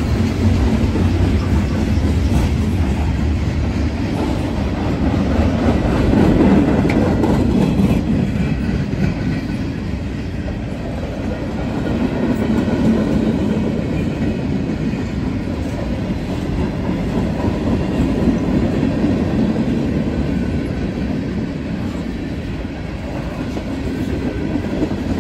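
A freight train's cars rolling past close by: a steady rumble with wheel clatter as covered hoppers, then steel coil cars and tank cars, go by.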